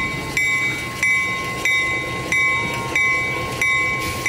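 Locomotive bell on an EMD diesel switcher ringing steadily, struck about one and a half times a second.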